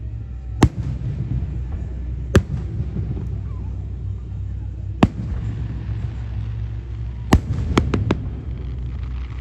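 Aerial fireworks shells bursting overhead: four sharp booms about two seconds apart, then a quick run of cracks near the end, over a steady low rumble.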